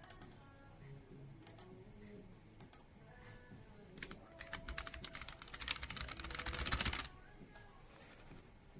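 Computer keyboard: a few single clicks, then about three seconds of fast typing starting around four seconds in.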